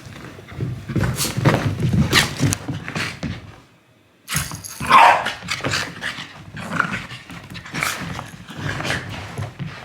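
Shiba Inu making rough play-fighting vocalizations, growls and grumbles. The sounds drop out briefly about four seconds in, and a louder, higher cry follows about five seconds in.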